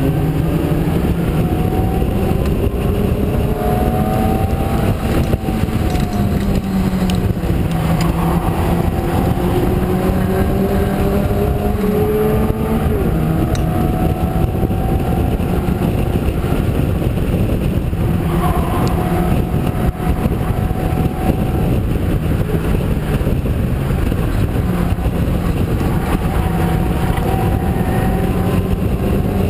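Open-cockpit Locost race car's engine running at moderate revs, heard on board with wind and road noise. The pitch rises and falls gently with the throttle, with no hard revving.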